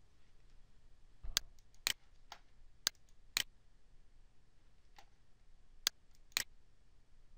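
Computer mouse button clicking: about eight short, sharp single clicks at uneven intervals, several in quick succession in the first half and a few more later.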